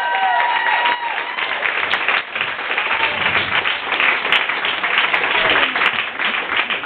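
Audience applauding steadily, with voices cheering over the clapping during the first second.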